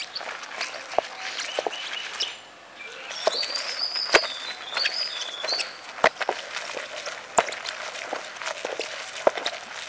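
Stone muller rolled and rocked over soaked lentils on a flat grinding stone: coarse crunching and scraping with irregular sharp clicks of stone on stone. Birds chirp briefly about three to five seconds in.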